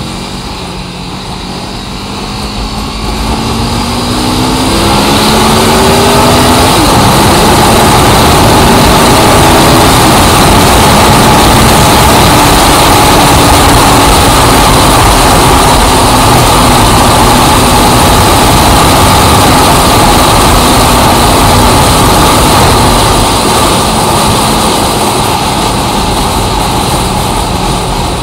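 A motor vehicle's engine speeding up, its pitch climbing over the first several seconds. It then runs loud and steady with a wash of noise, easing off slightly near the end.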